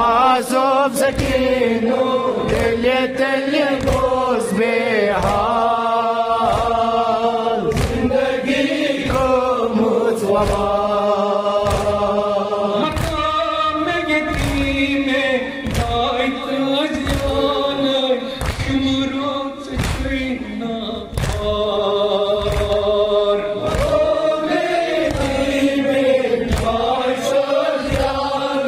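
Kashmiri noha: a male reciter sings a mourning lament into a microphone while a group of men chant along. Regular slaps of hands beating on chests (matam) keep the beat.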